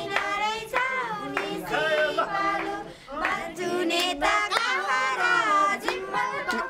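A group of young girls singing together in unison, with some hand clapping.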